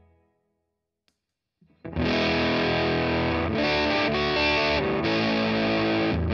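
Electric guitar (Gibson ES-339 into a Dr. Z Maz 18 Jr amp) dies away to silence, with a faint click about a second in. Then the home-built BJFE Bone Bender fuzz pedal is on and the guitar comes in loud and heavily fuzzed.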